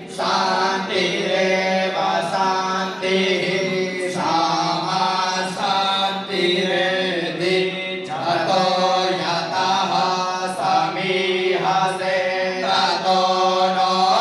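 Hindu mantra chanting during temple worship: a chanted line that rises and falls in pitch, with short breaks between phrases, over a steady low tone.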